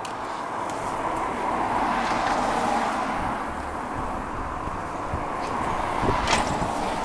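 Road traffic: a car passing, its noise swelling about two seconds in and then easing off, with a sharp click about six seconds in.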